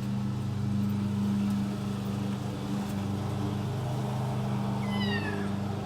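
A kitten gives one short, high, falling meow about five seconds in, over a steady low hum that runs throughout and is the loudest sound.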